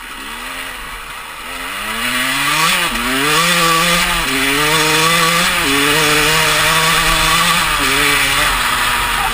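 KTM 200 EXC two-stroke single-cylinder dirt bike engine under way, accelerating: its pitch climbs and drops back at each of three gear changes, then holds steady.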